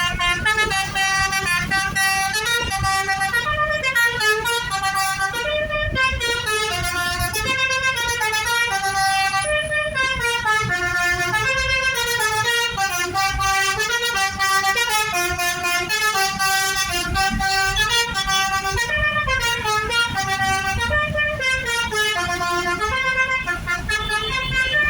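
Bus 'telolet' multi-tone horn playing a tune of short stepping notes, rising and falling over and over, above the low rumble of engine and road noise.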